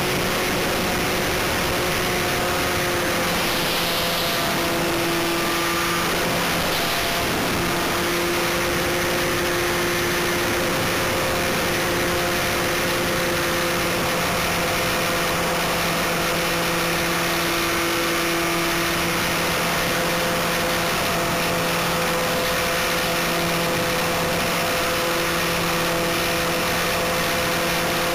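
GWS Stearman RC model biplane in flight, heard from a camera on its airframe: the electric motor and propeller hum steadily, stepping slightly up and down in pitch with the throttle. A constant rush of wind on the microphone runs underneath.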